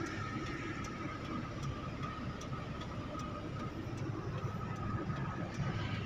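Heavy truck's diesel engine heard from inside the cab, a steady low rumble at low revs, with a faint tick repeating a little more than once a second.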